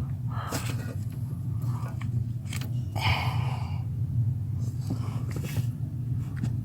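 Scattered light knocks and scrapes of tools and parts being handled, with a brief scraping rasp about three seconds in, over a steady low hum.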